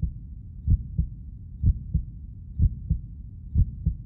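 Heartbeat sound effect: low double thumps, lub-dub, about once a second, four beats in all, over a low rumble.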